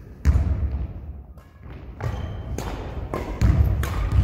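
Badminton rally: sharp racket hits on the shuttlecock, several in a row, with players' footsteps on a wooden sports hall floor and a short lull about a second in.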